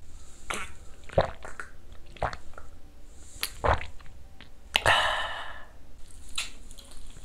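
A few scattered light taps and knocks of tableware, among them a small glass shot glass set down on the wooden table. About five seconds in comes a brief crinkly rustle as a disposable plastic glove is pulled on.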